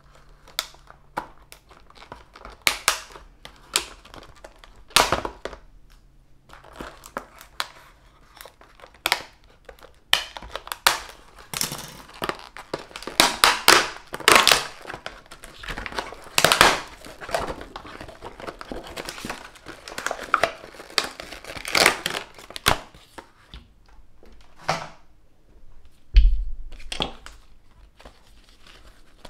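Scissors cutting a stiff clear plastic clamshell pack, with crackling, snapping and crinkling as the plastic is cut and flexed apart. Near the end there is a single loud thump.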